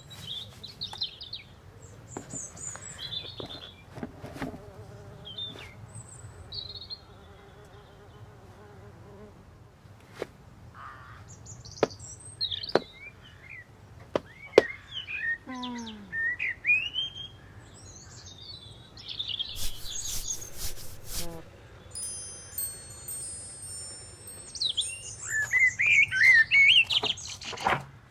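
Songbirds chirping and singing in short calls and trills, busier and louder near the end, with a few sharp clicks among them.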